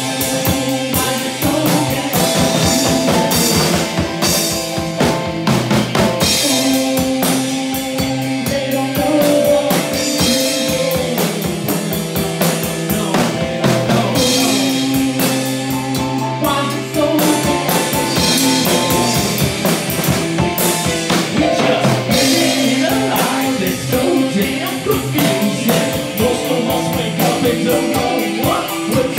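Band playing live with no singing: a drum kit keeps a dense groove of kick, snare and cymbal strikes under long held keyboard chords.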